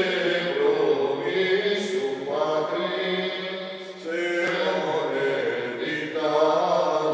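A small group of men chanting a prayer together in unison, with long held notes and a brief pause about four seconds in.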